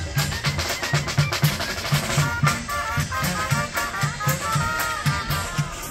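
Background music with a steady drum beat and busy percussion; a melody line comes in about two seconds in.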